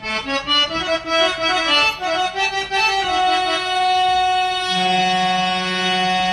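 Background instrumental music with a reedy, accordion-like tone: a quick run of melody notes for about three seconds, then long held chords over a low drone.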